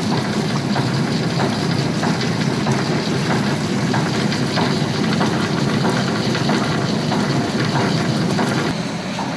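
Tempeh soybean washing machine running its wash cycle, churning soybeans in water: a steady mechanical noise with faint regular ticks.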